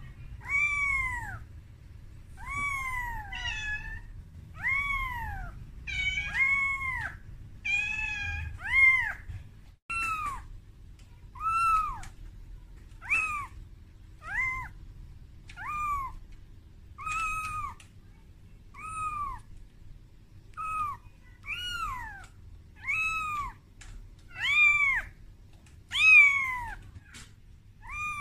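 Young calico kitten meowing over and over, about one cry a second, each cry rising and then falling in pitch. These are the distress cries of a kitten calling for its mother, frightened at being taken out of its room for the first time.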